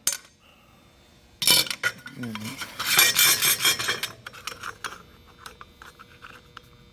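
Small metal aircraft parts clinking and rattling as they are handled on a workbench: a sudden clatter, a louder run of rattling, then a few light ticks.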